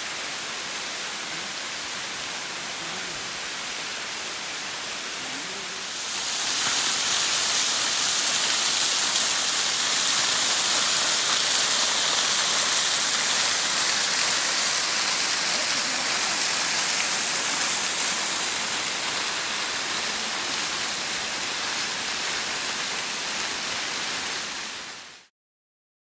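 Waterfall, a steady rush of falling water on rock. It gets louder and brighter about six seconds in and cuts off abruptly just before the end.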